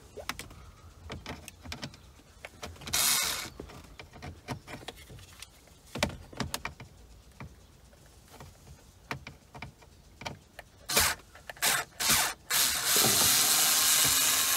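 Work on a car's dashboard climate control unit as its screws are removed and it is freed: scattered small clicks and taps of a tool and plastic parts, a short scraping rush about three seconds in, and a louder, steady rushing noise near the end.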